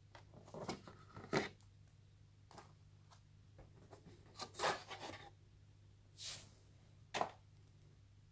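Handling noises from unboxing a phone: the handset lifted out of its box tray and set down, then the box's inner tray lifted out, giving scattered taps, rubs and light knocks with a few sharper clicks, the sharpest near the end. A faint low hum runs underneath.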